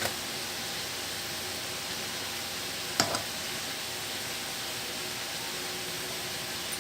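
Steady hiss of kitchen background noise, with a single sharp click or tap about three seconds in.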